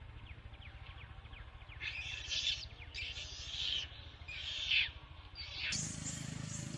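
A newborn macaque giving a run of about four short, raspy cries, starting about two seconds in.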